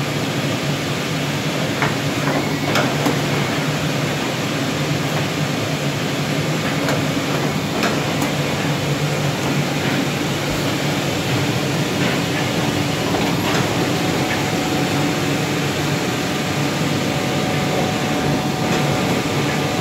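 Horizon BQ-470 EVA hotmelt perfect binder running: a steady mechanical hum with occasional light clicks.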